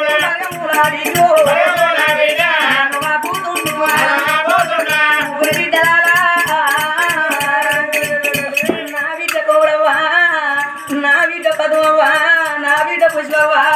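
Oggu katha Telugu folk ballad singing: male voices sing over a steady beat of hand-played barrel drum strokes, about three to four a second.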